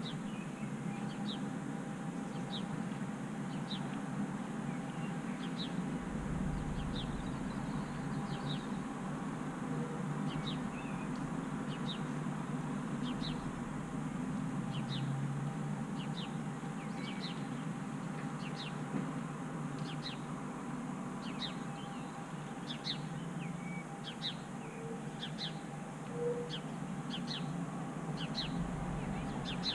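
Small birds chirping, short high chirps every second or so, over the steady low hum of the widebeam canal boat's engine as it cruises.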